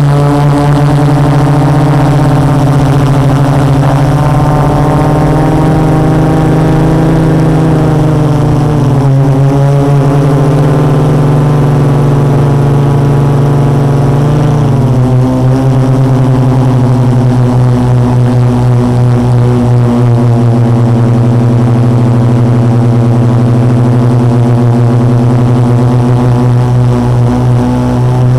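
A quadcopter's four Multistar 2212 920kv brushless motors and 12-inch carbon-fibre propellers droning in flight, heard loud from the onboard camera. Several close hums beat against each other, and their pitch shifts with the throttle, dropping noticeably about halfway through.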